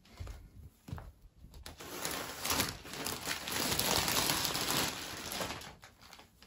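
Large fleece bed blanket rustling as it is shaken out and spread over a bed. A couple of soft knocks come first, then a swelling rustle of about four seconds that dies away.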